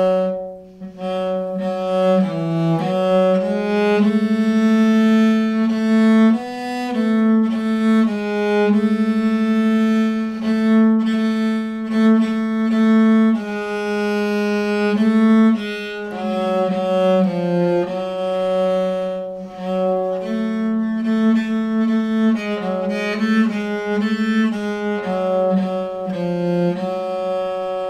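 Bass viol (viola da gamba) bowed, playing a slow melody of sustained notes that change every second or so. It is fingered with notes held down across string crossings so that the instrument resonates.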